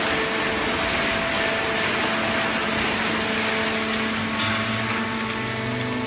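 Automatic horizontal hydraulic waste-paper baler and its feed conveyor running: a steady machinery hum and whine, with a deeper hum coming in about four and a half seconds in.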